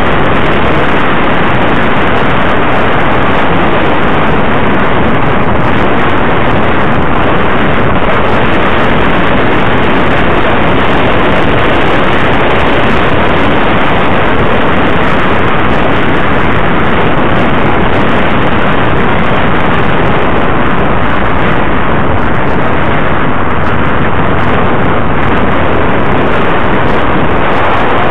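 Steady, loud riding noise from a camera on a moving motorcycle: engine, tyre and wind rush blended into one even roar on the microphone, with no change in speed or pitch.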